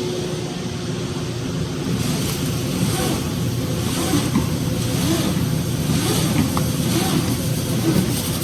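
Duct-cleaning equipment running with a loud, steady mechanical noise.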